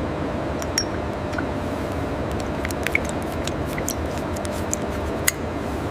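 Steady low industrial machinery rumble and hum, with scattered light metallic clicks and clinks, a few sharper ones about a second in, near the middle and near the end.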